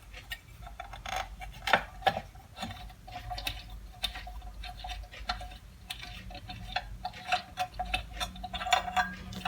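Fast, regular metallic ticking at several ticks a second, with scattered clicks and knocks, as hardware is worked loose and parts are taken off a 2x42 belt grinder.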